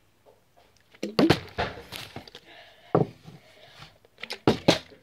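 A series of sharp knocks and thumps of things being handled and set down on a wooden workbench: a quick cluster about a second in, one heavy thump about three seconds in, and two more near the end.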